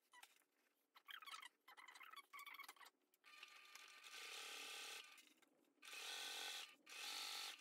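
Sewing machine top-stitching through heavy waxed canvas in short, quiet runs: one steady run about three seconds in, then two shorter runs near the end, with soft handling of the stiff fabric between them as the panel is guided and turned.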